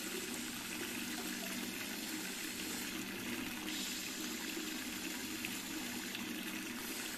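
Steady, unbroken rush of flowing water at a dam.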